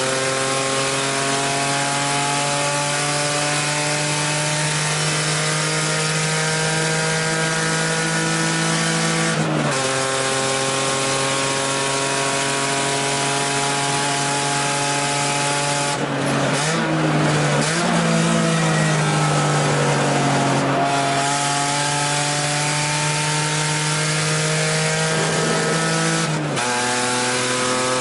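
The straight-six engine of a race-prepared 1989 BMW 325i E30, heard from inside the cabin, pulling hard with its pitch climbing steadily. About a third of the way in and again near the end the note drops sharply at an upshift. Around the middle it dips and jumps as the driver lifts and changes gear for a corner, with more tyre and road noise, then settles and pulls again.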